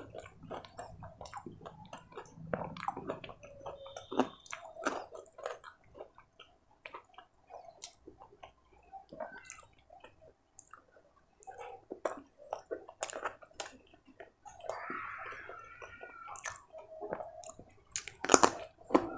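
Close-miked chewing and wet mouth sounds of a man eating paneer paratha with paneer masala by hand: a steady stream of short smacks and crackles, loudest near the end as he takes a fresh mouthful.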